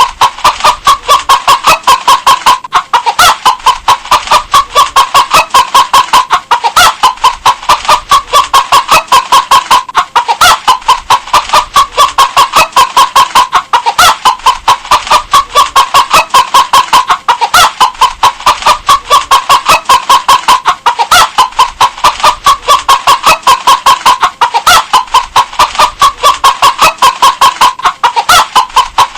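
Hen clucking in a rapid, unbroken run of short clucks, several a second, in a pattern that repeats about every three and a half seconds.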